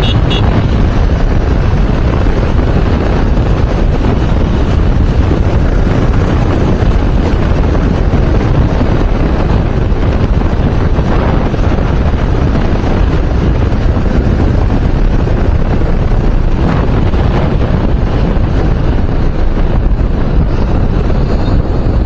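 Loud, steady wind buffeting on the microphone of a Yamaha motorcycle riding at speed.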